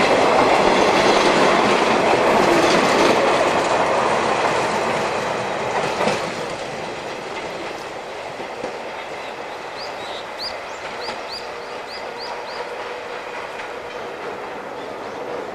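Another electric train on the adjacent track pulling away and receding, its running noise loud at first and fading over about six seconds, then a quieter steady background. Near the middle there is a short run of about eight quick, high chirps.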